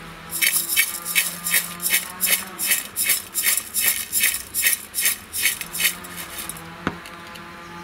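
A stainless steel bowl of cut wild lemon, ginger, green chillies and coarse salt being shaken and tossed by hand to mix the pickle. The pieces and salt rattle against the steel in quick rhythmic swishes, about two or three a second, and stop about six and a half seconds in. A single short click follows.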